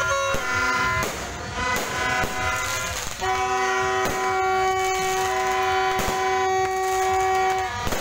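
Horns honking in long held notes, several pitches overlapping at first, then one note held for about four seconds. Sharp fireworks bangs cut in every second or so.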